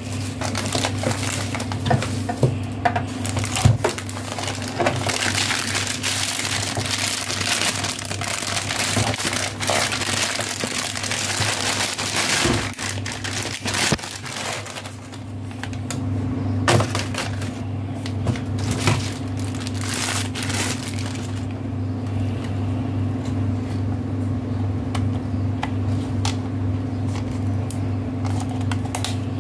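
Plastic packaging bags crinkling and rustling as the contents are handled and unwrapped, dense for most of the first two-thirds and then thinning to occasional light ticks and rustles. A steady low hum runs underneath.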